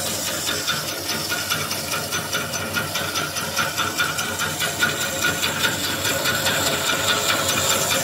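Small corn puff extruder running: the electric motor and extrusion screw give a steady mechanical whine with a fast, even pulsing while puffed corn sticks are pushed out of the die.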